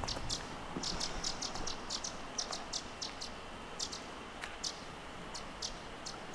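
Small birds chirping: short, high, quick notes, several a second and irregularly spaced, over a low steady background noise.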